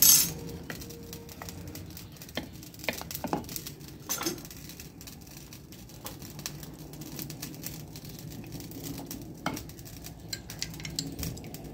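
Wooden spoon stirring soup in an open pressure cooker, with scattered knocks and clinks against the pot. A sharp clink right at the start.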